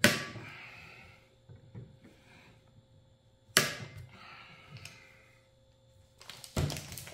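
Sharp clicks from a torque wrench on the rifle's action screws, two about three and a half seconds apart: the wrench reaching its set torque of 35 without turning the screw further. A quick run of knocks near the end.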